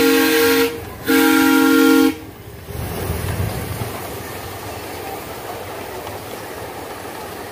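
Miniature Daylight steam locomotive's chime whistle sounding a chord of several tones, cut off about a second in, then one more blast of about a second. It is followed by the steady low rumble of the passenger cars rolling past on the track.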